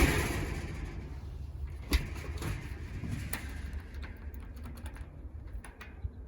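A metal security door being handled with its newly fitted Schlage doorknob: a loud bang right at the start that fades over about a second, then a few sharp clicks of the knob and latch.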